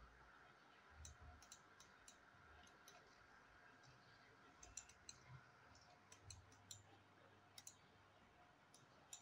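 Near silence with faint, scattered clicks of a computer mouse.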